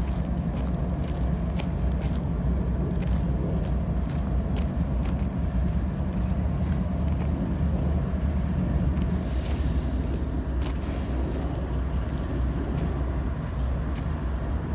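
Diesel locomotive idling steadily on a parked train, a low even rumble.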